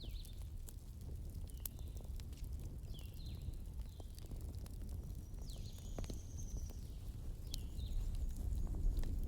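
Wood fire in a fireplace crackling, with scattered sharp pops over a low rumble of flame. Through it come short high squeaks and, about six seconds in, a longer high whistle.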